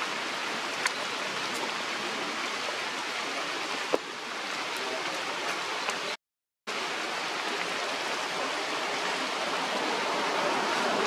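Steady rushing background noise of the outdoors, with a sharp click about four seconds in and a fainter one about a second in. The sound cuts out completely for about half a second a little after six seconds.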